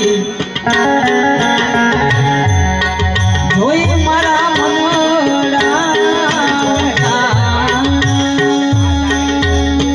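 Bhajan accompaniment: a harmonium melody over sustained notes, with hand drums keeping a steady rhythm of deep strokes.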